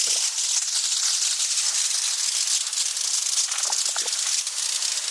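Water spraying onto porphyry paving slabs in a steady hiss, rinsing the cement haze remover off the stone.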